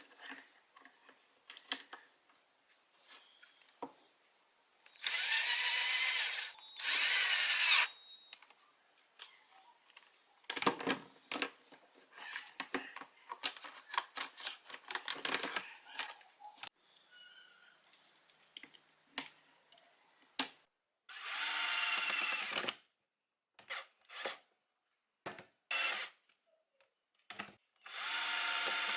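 A small power tool's motor whirring in several short bursts of one to two seconds, with irregular clicking and scraping between the bursts.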